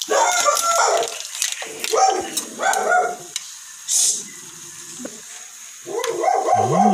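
Dogs barking, several barks in the first three seconds, over the light scrape and sizzle of seafood being stirred in a wok with a metal ladle.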